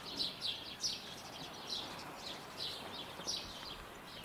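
Small birds chirping, short high falling chirps repeating a few times a second over faint outdoor background noise.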